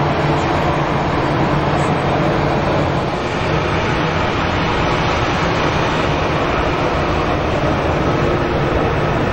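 Airbus A320-214's CFM56 jet engines running at idle as the airliner taxies, a steady rumbling hiss with a faint high whine that comes in partway through.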